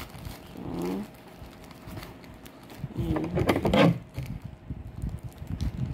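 Plastic courier pouch being handled and turned over in the hands, with irregular rustling and rubbing. Two brief pitched sounds are heard, a faint one about a second in and a louder one about three to four seconds in.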